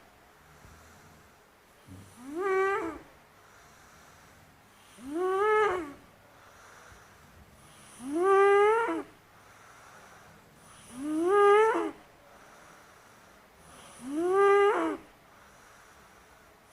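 A sleeping boy snoring with regular breaths: five pitched snores about three seconds apart, each rising and then falling in pitch over about a second.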